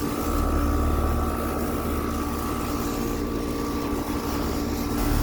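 2019 Carrier Comfort central air conditioner's outdoor condensing unit running: a steady hum from the compressor and condenser fan. A low rumble under it grows louder near the end.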